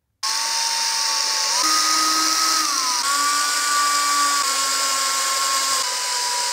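Cordless drill driving screws through a steel shelf bracket into wall plugs. It starts suddenly about a quarter second in and runs as a steady motor whine that shifts pitch up and down a few times.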